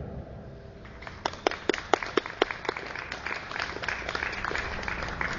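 Scattered applause from a small audience: a handful of sharp, irregular hand claps starting about a second in, then softer, denser clapping.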